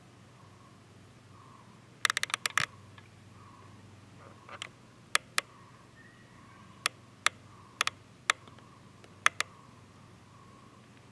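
Sharp clicks: a quick run of about six a couple of seconds in, then single and paired clicks at irregular intervals, over a faint steady hum.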